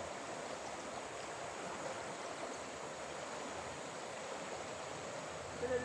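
Steady rushing of a flooded, muddy river flowing past the bank.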